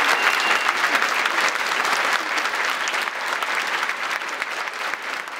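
Audience applauding, dense clapping that gradually dies down toward the end.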